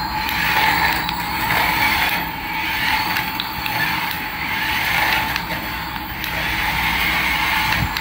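Battery-powered toy Airbus A380 plane driving across a tile floor: its small geared electric motor whirs steadily, with a constant high tone, and the sound rises and falls in loudness as it moves.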